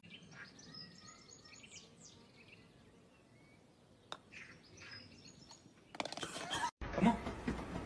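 Faint bird chirps in the background, with a single sharp click about four seconds in. Louder noise comes in near the end.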